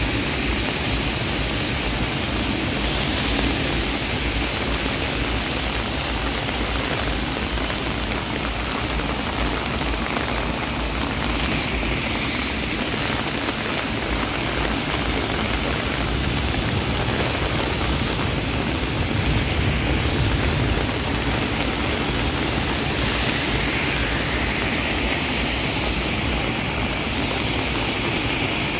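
Steady rush of floodwater running over and pouring down through a street storm-drain grate. The grate is taking in only a small part of the water running across the road.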